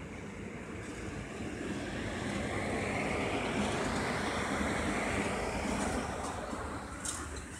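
Freight train of hopper wagons rolling past: a steady rumble of wheels on the rails that swells to its loudest midway, with a few sharp clicks near the end.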